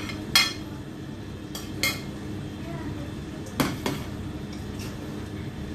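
A plate and a long-handled spoon clanking against a wok as food is tipped in and stirred. There are four sharp clanks, about half a second, two seconds and three and a half seconds in, over a steady low hum.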